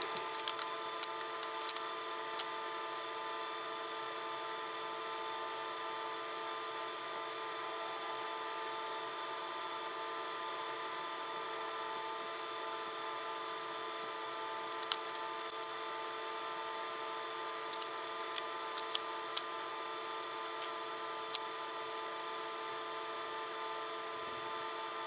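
Small clicks and taps of wire and hand tools being handled on a workbench, in scattered clusters, over a steady faint hum of several fixed pitches.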